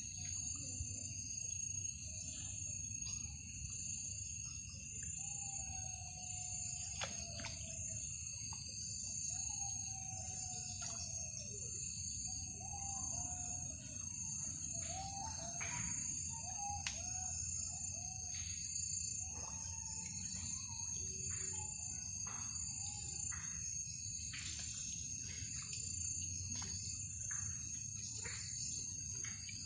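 Night insect chorus of crickets, a steady high-pitched trilling in several layers, with scattered short clicks and, through the middle, fainter gliding calls lower down.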